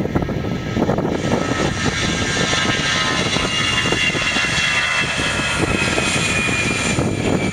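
Air France Airbus A319's jet engines at high thrust as the airliner rolls fast down the runway for takeoff: a steady rumble with a high whine that swells about a second in and falls slightly in pitch as it passes.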